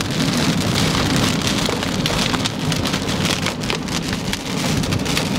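Heavy rain pelting a moving car's windshield and roof, heard from inside the cabin: a dense patter of drops over the low steady rumble of the car on the wet road.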